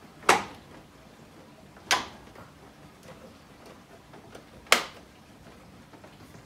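Plastic clips of a kidney grille snapping into a BMW M2's front bumper as it is pressed home by hand: three sharp snaps, the last the loudest.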